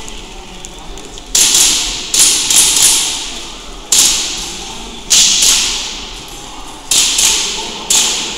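Gas-blowback airsoft pistol (KWA USP Match) fired about ten times in irregular pairs and small groups. Each shot is a sharp crack trailing off in the echo of a large hall.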